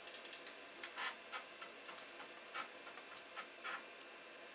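Faint, irregular clicking from a Commodore Amiga as the Workbench 3.1 install disk is loaded: about a dozen short, sharp ticks, several in quick succession at the start and the rest scattered.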